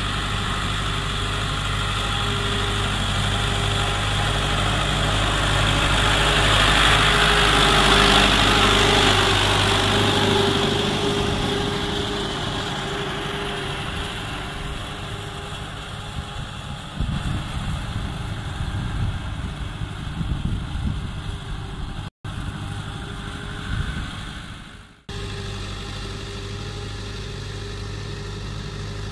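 1988 Fiat 640 tractor's four-cylinder diesel engine running steadily under load while it tows a laser land-leveling scraper. It grows louder to a peak about eight seconds in, then eases off. The sound cuts out briefly twice near the end.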